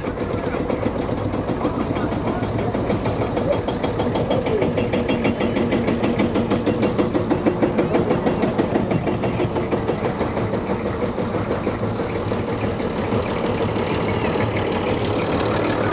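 Vintage tractor engines running as tractors drive slowly past one after another, including a red Massey-Harris. The engines give a fast, even beat that grows louder toward the middle, then eases off.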